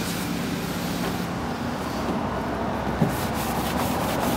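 Cloth rubbing polish over the painted engine cowling of a light aircraft, over a steady background hum. From about three seconds in, the wiping comes through as a quick run of short scratchy swishes.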